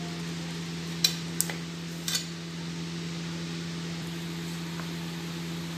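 A knife cutting set milk cake strikes the stainless steel plate underneath with sharp metallic clicks: one about a second in, another shortly after, and a quick pair around two seconds. A steady low hum runs underneath throughout.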